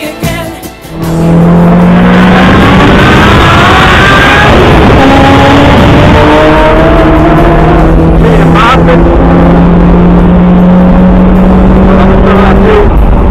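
BMW Z3 engine running hard under load on a race track, heard from inside the cabin through a dashcam microphone, with road and wind noise; very loud and distorted.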